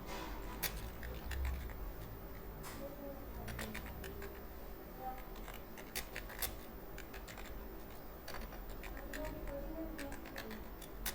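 Computer keyboard keys clicking in a fast, irregular stream of typing.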